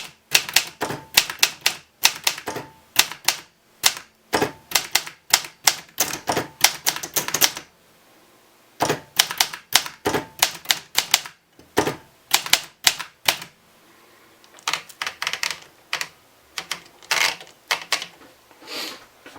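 Keys of a 1960s Olympia manual typewriter striking the platen in quick, uneven runs of sharp clacks, with a couple of short pauses and somewhat softer strikes near the end.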